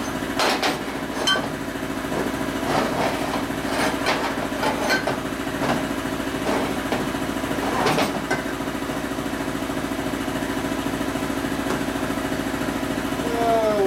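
Scattered metal clanks and knocks as a panhead's aluminium cylinder head is set and clamped in a steel bench vise, over a steady droning hum of shop machinery. The knocks thin out after about eight seconds while the hum carries on.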